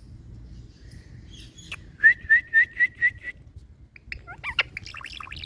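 Indian ringneck parakeet whistling a quick run of about six short rising notes, then breaking into a burst of varied chattering calls near the end.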